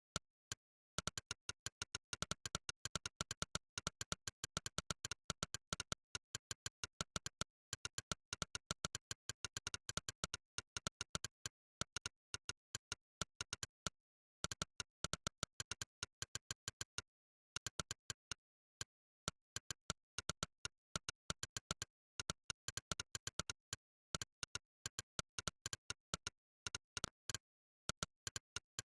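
Monkeytype's 'click' keystroke sound effect: a fast, uneven stream of short synthetic clicks, one per typed key, with dead silence between them and a few brief pauses in the typing.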